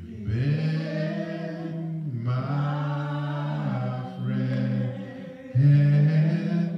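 A man singing unaccompanied through a microphone, slow and drawn out, holding four long notes; the loudest note comes near the end.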